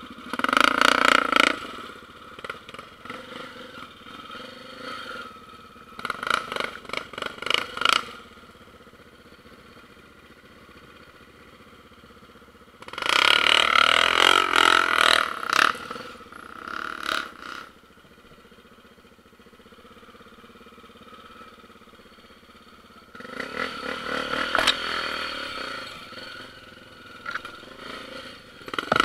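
Single-cylinder four-stroke trail motorcycle engine running off-road, with several bursts of throttle lasting one to three seconds, dropping back to a steady lower run in between.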